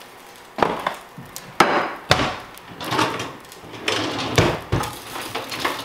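A series of kitchen knocks and clunks, about eight or nine spread through a few seconds: seasoning containers handled and set down and a wooden cabinet door worked.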